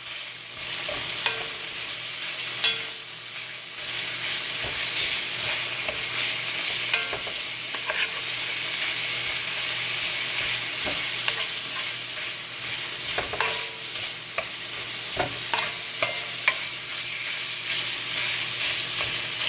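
Minced pork frying in a hot cast iron pan, a steady sizzle with scattered clicks and scrapes of a utensil against the pan as it is stirred.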